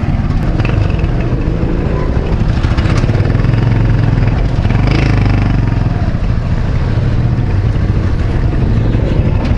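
Motorcycle engine of a Philippine tricycle (motorcycle with passenger sidecar) running steadily while riding, heard from inside the sidecar.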